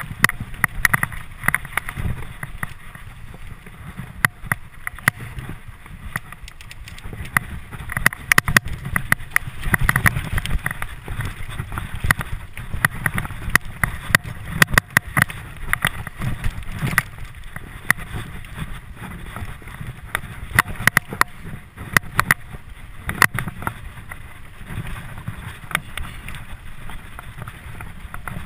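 Mountain bike ridden fast down a dirt trail: wind rumbling on the microphone, with frequent sharp clicks and rattles as the bike jolts over the rough ground.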